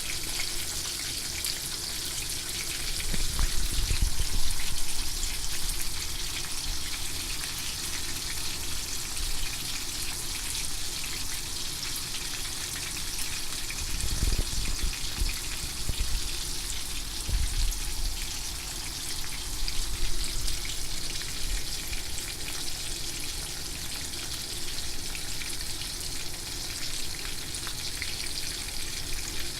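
Horse mackerel frying in hot oil: a steady crackling sizzle, with some low bumps and handling noise around four seconds in and again from about fourteen to eighteen seconds.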